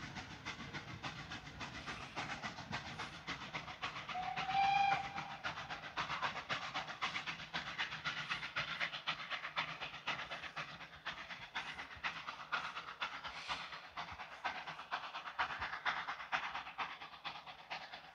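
Ol49 steam locomotive pulling its train away with a rapid running beat, and one short whistle blast about four seconds in.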